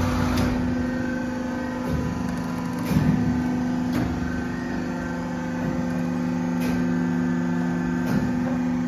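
Valve testing machine running with a steady electric drone, its motorised drive head coupled to a gate valve's handwheel. A few light knocks come through about three seconds in and again near the end.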